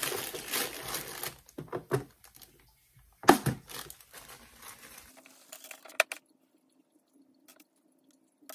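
Clear plastic bags of metal bangles crinkling as they are handled, with a few sharp clicks and knocks; the loudest knock comes about three seconds in. From about five seconds in it goes quiet but for a faint steady hum and a couple of small clicks.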